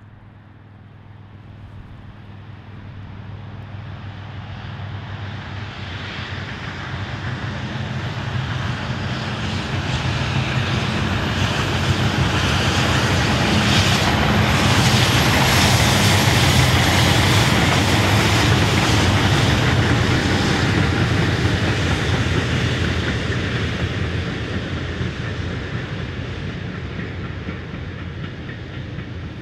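A pair of Class 66 diesel locomotives with their EMD two-stroke V12 engines, top-and-tailing a railhead treatment train of tank wagons, running past. The sound builds steadily, peaks about halfway through with engine drone and wheel and rail noise, then fades as the train draws away.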